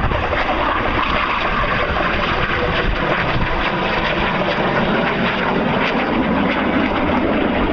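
Canadair Sabre jet fighter in flight, its jet engine making a steady, loud rushing noise.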